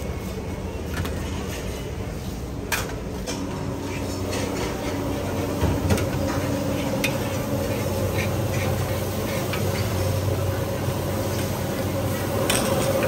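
Noodles being stir-fried in a large wok: a metal spatula clinking and scraping against the pan over food sizzling, with a steady hum underneath. It grows louder partway through.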